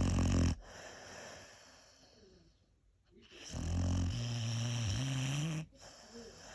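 Dog snoring: a loud pitched snore right at the start and another lasting about two seconds from three and a half seconds in, its pitch rising at the end, each followed by a softer breathy exhale.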